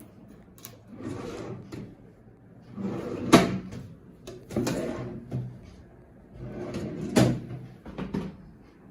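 Furniture being handled: sliding and scraping with several sharp knocks, the loudest about three and a half seconds in and another about seven seconds in, like drawers or panels being moved and set in place.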